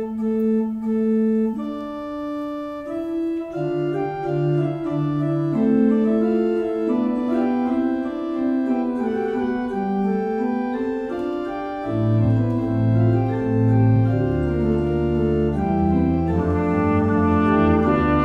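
Church organ playing a slow piece of sustained chords in several voices. Deep pedal bass notes come in about twelve seconds in.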